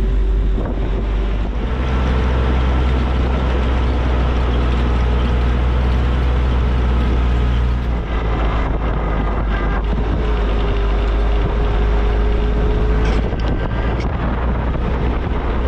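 Flat-fender Willys Jeep driving, its four-cylinder engine running steadily under a heavy low rumble of engine and road noise, with a couple of short knocks near the end.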